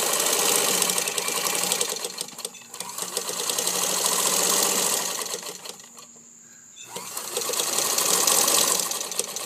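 A Singer 15-75 sewing machine, belt-driven by an external motor, running and stitching through layered cotton at a long stitch length, with a fast, even needle rhythm. It pauses briefly about two and a half seconds in, stops for about a second a little past halfway, then starts sewing again.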